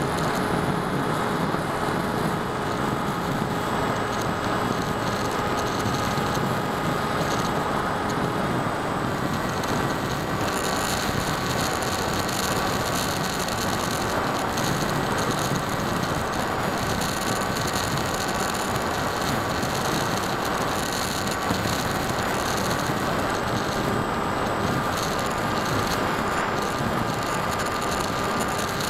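Small electric RC plane's motor and propeller buzzing steadily, heard through the onboard camera's microphone with wind rushing past. The whine shifts in pitch about a third of the way in as the throttle changes.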